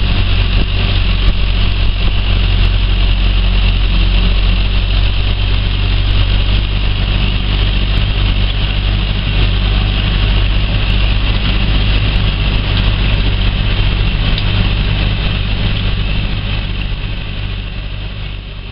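Massey Ferguson 4245 tractor's four-cylinder diesel engine running steadily under load while pulling a harrow, heard from inside the cab. It fades out near the end.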